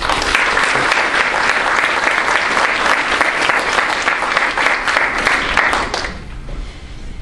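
Audience applauding, starting at once and dying away about six seconds in.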